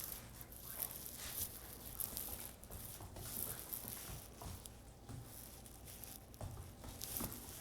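Faint scuffling and rustling with scattered light taps, a young puppy moving about and working a toy.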